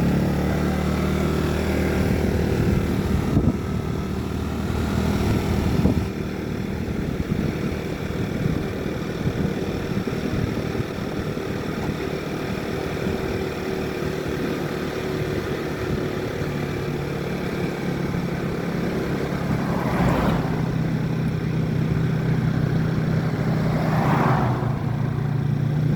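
A motor vehicle's engine running while under way, a steady low hum whose pitch shifts a few times as it changes speed.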